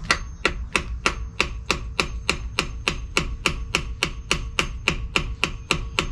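A hammer striking a long steel punch held against the nut at the centre of a bus's front wheel hub, steady blows about four a second that drive the nut round to loosen it. The metal rings faintly between the strikes.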